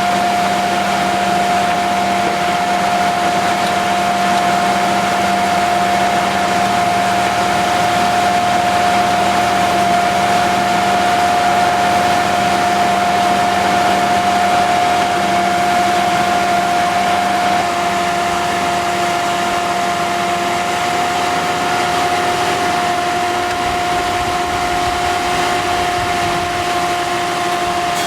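Hydraulic bandsaw sawmill powered by a 62 hp Perkins diesel, running steadily with a constant high whine over the machine noise.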